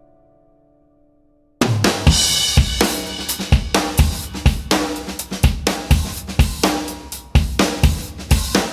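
A held guitar chord fades to near silence. About a second and a half in, a loud drum-kit music track starts abruptly, with a steady beat of kick, snare and hi-hat.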